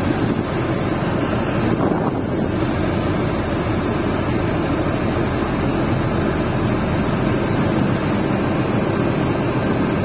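Shacman tractor head's diesel engine idling steadily, a constant low rumble.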